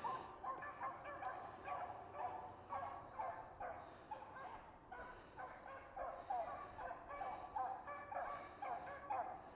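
Beagles baying in a steady string of short, overlapping cries, faint, as they run a rabbit's track in full cry.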